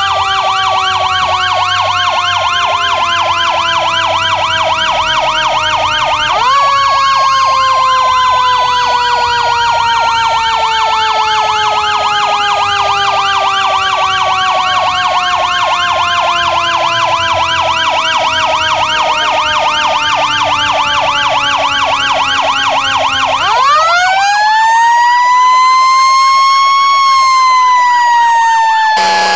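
Fire truck sirens: an electronic siren yelping rapidly, about five cycles a second, over a mechanical siren that winds up and then slowly coasts down in pitch. The mechanical siren is wound up again about six seconds in and once more a little after twenty-three seconds, when the yelp stops and the mechanical siren sounds alone.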